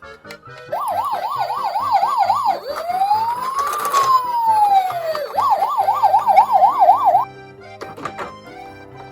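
Toy police car's electronic siren: a fast warbling yelp of about three cycles a second, then one slow wail rising and falling, then the fast yelp again, cutting off about seven seconds in. Background music plays underneath.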